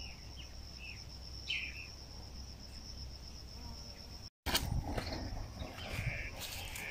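Steady high-pitched insect trill with a few short bird chirps in the first two seconds. After a brief break about four seconds in, rustling and small snaps of leafy plant stems being handled, with the insect trill going on underneath.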